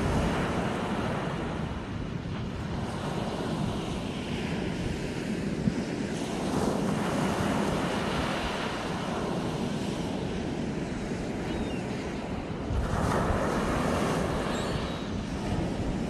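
Small sea waves breaking and washing up a sandy beach, the surf swelling three times, with wind rumbling on the microphone.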